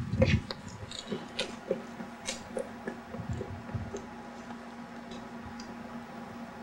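Footsteps of a man running off on pavement: a few heavy steps at the start, then quicker clicking steps that fade away over about four seconds, over a steady low hum.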